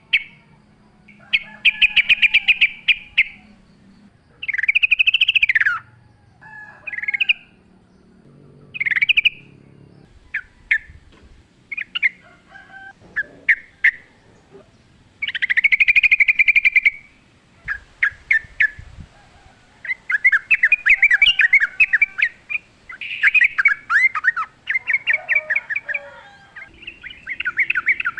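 Wild yellow-vented bulbuls (trucukan) singing: a run of bubbly, chattering phrases of one to two seconds each, with short pauses between them. The phrases come closer together in the second half.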